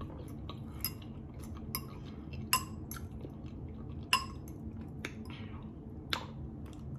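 Metal fork clinking against a glass salad bowl while salad is scooped up: about half a dozen sharp clinks spread over several seconds, over a steady low hum.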